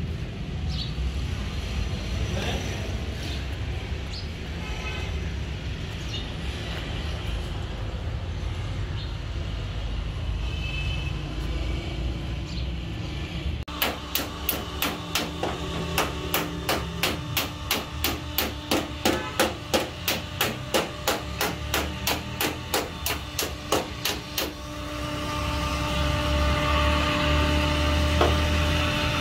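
Hammer tapping on a steel car door panel to work out a dent: a long run of sharp, evenly spaced metallic blows about three a second, starting about halfway through and stopping some seconds before the end. Before the tapping there is a steady low rumble; after it, a louder steady hum.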